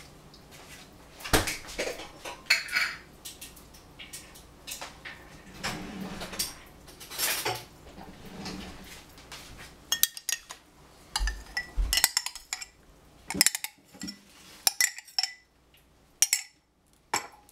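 Dishes and cutlery clinking and scraping in a string of sharp knocks, busier in the second half; near the end, a metal spoon scraping against a glass jar as yogurt is scooped into a ceramic bowl.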